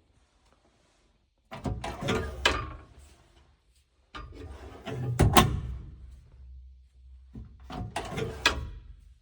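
Glovebox door of a 1955 Chevy 3100 pickup being worked three times, clattering and clicking as it swings and the new push-button latch catches; the loudest snap comes midway. The adjusted latch tab is engaging as it should.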